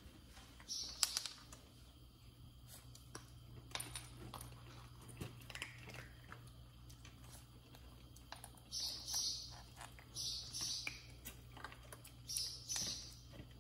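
Kittens eating dry kibble from steel bowls: faint crunching in short spells, with scattered small clicks of food and bowl.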